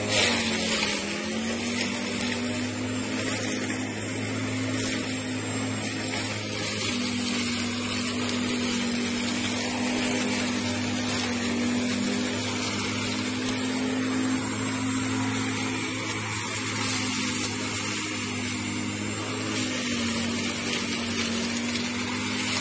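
Greenworks 14-inch, 9-amp corded electric lawn mower running steadily as it is pushed through grass, cutting: a steady motor hum whose pitch sags briefly about a second in and again near the end.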